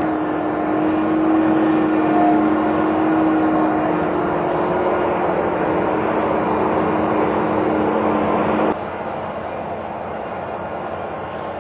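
Forage harvester and tractor running steadily while chopping whole-crop barley, a loud machine drone with a steady hum through it. About nine seconds in the sound cuts abruptly to a quieter engine drone.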